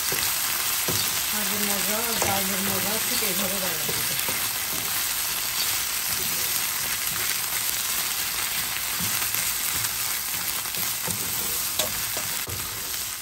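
Leafy greens sizzling in hot oil in a frying pan while being stirred and tossed with a wooden spatula, a steady hiss with occasional light taps of the spatula against the pan.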